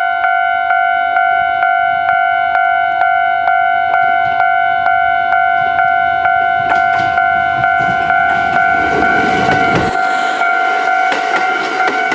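Japanese level-crossing warning bell dinging steadily, a little over two strikes a second. The rumble of a Kintetsu 5200-series and 1230-series express train running slowly over the crossing builds up under it in the second half.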